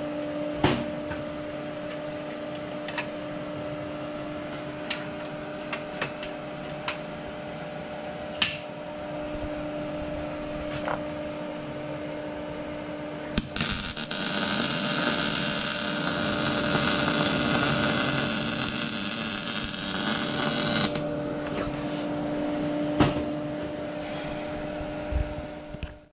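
Thermal Arc electric arc welder striking an arc and welding for about seven seconds, starting about halfway through. Before that, a steady hum with a few light clicks and taps of handling.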